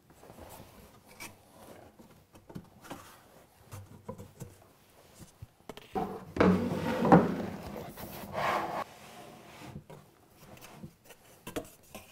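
Plywood cabinet parts being handled on a workbench: scattered light clicks and taps, then, about six seconds in, a louder few seconds of wood scraping and rubbing against wood.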